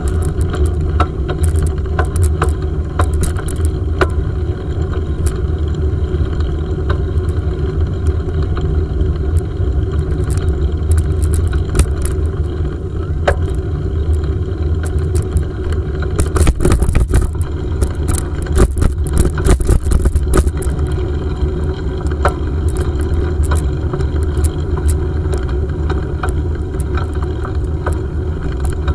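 Steady low rumble of a bicycle rolling along a paved path, heard through a handlebar-mounted camera, with scattered clicks and rattles from the bike and mount over bumps. The rattling thickens into a cluster between about sixteen and twenty seconds in.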